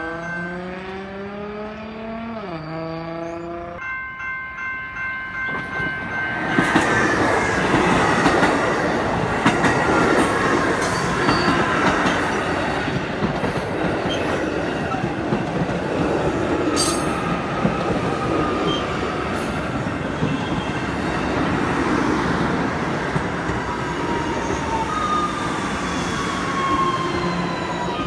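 Electric multiple-unit commuter train: a whine from its motors rises in pitch and drops for the first few seconds. From about six seconds in, the train passes close by and its wheels rumble and clatter on the rails, with faint squealing tones.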